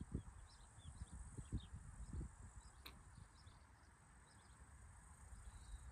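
Near-silent outdoor ambience: faint, short high chirps repeat throughout, with low wind rumble on the microphone in the first couple of seconds and a single faint click about three seconds in.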